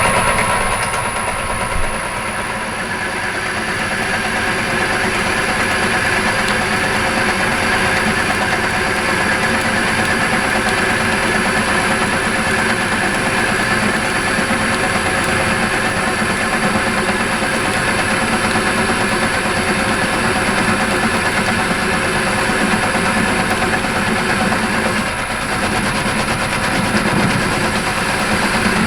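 Myford Super 7B lathe running steadily with its gearbox driving the carriage on power feed, a continuous mechanical whir of motor and gear train.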